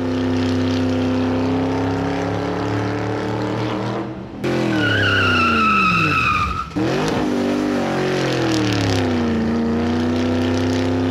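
Racing-car sound effects: an engine holding a steady note, its pitch sweeping down and back up twice, with a high tyre squeal in the middle. The sound cuts off and restarts abruptly twice.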